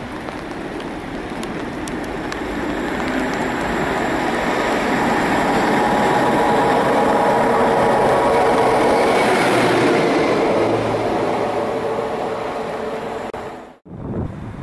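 British Rail Class 92 electric locomotive 92003 approaching and running through, its noise building steadily to a peak about two-thirds of the way in, over a steady low hum. The sound cuts off abruptly near the end.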